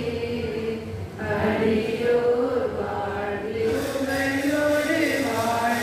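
Voices singing a slow hymn together in a church, holding long notes that step from one pitch to the next.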